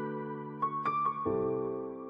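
Soft background keyboard music: a few single melody notes over held chords, with a chord change a little past halfway.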